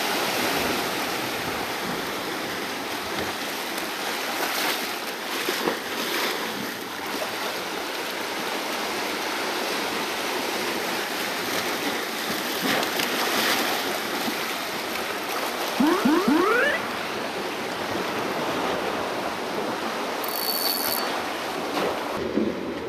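Sea waves washing and surging over a low rock ledge: a steady rush of surf and foaming water. About two-thirds of the way through, a few quick rising squeaks stand out as the loudest moment.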